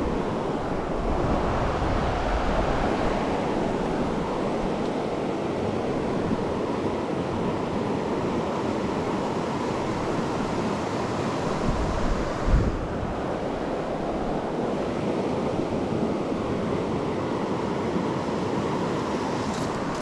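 Shallow mountain stream rushing steadily over a rocky riffle, with a brief low thump about twelve seconds in.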